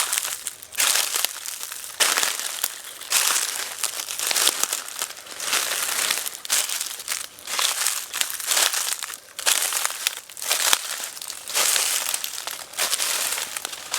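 Footsteps walking through dry leaves: a crisp crunch and crackle with each step, at a steady walking pace of a little more than one step a second.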